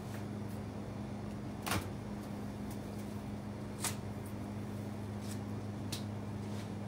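A steady low hum with a few sharp clicks over it; the two loudest clicks come about two seconds apart.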